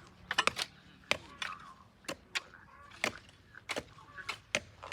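Repeated sharp knocks from work on a garden fence, about a dozen in an irregular run, two or three a second.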